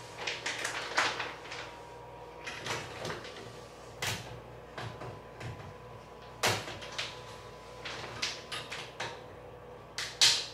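Shower curtain hooks being clipped onto a curved metal shower rod and pushed along it: a run of irregular clicks and clacks, the loudest near the end.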